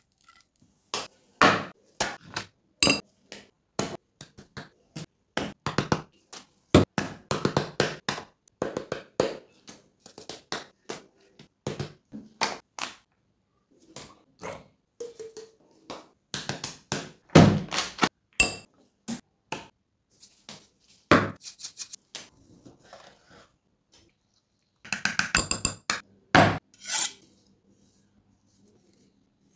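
Close-miked kitchen prep: irregular sharp taps, knocks and clatter of a knife and utensils on a wooden cutting board and a metal tray, with a few brief flurries of rapid clicking and some short pauses.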